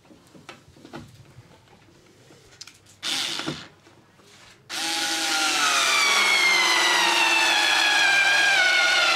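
Bosch IXO IV 3.6 V cordless screwdriver running: a short burst about three seconds in, then a longer steady whine from about halfway whose pitch slowly falls as the motor works a screw in.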